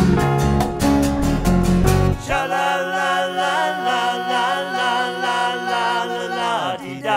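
A band with strummed guitars and drums plays, then cuts off about two seconds in, leaving several voices singing a long held chord in close harmony without accompaniment, which ends near the close.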